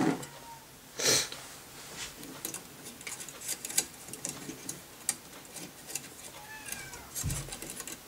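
Small clicks and ticks of metal wire fan clips being worked into the fins of a tower CPU heatsink and against the plastic fan frame, with a short rustle about a second in and a soft thud near the end.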